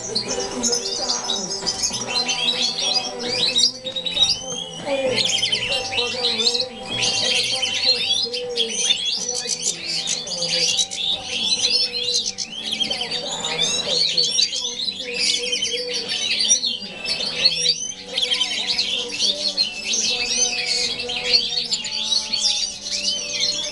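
Several European goldfinches singing and twittering without pause, a dense run of quick, high chirps and trills, over music with steady held notes underneath.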